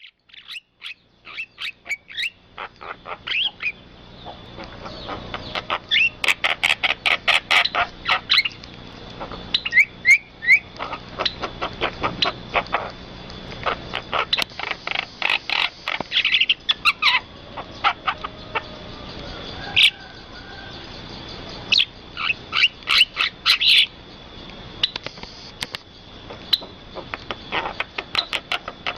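Birds chirping and calling in quick runs of short, sharp notes, over a faint steady high tone.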